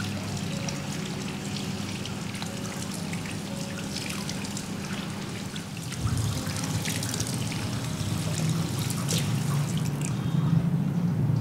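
Water trickling and dripping, with scattered small clicks; it grows louder about six seconds in.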